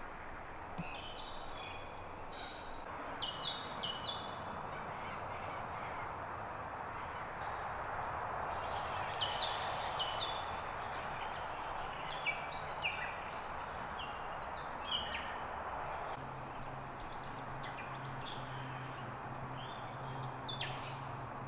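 Birds chirping in short, high calls that come in clusters, over a steady background hiss.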